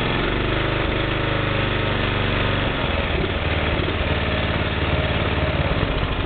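Briggs & Stratton 11 HP single-cylinder engine running, its beat turning rough and uneven about three seconds in. It runs far too rich, which the owner puts down to a leaking carburettor that keeps flooding it with fuel and that no mixture setting cures.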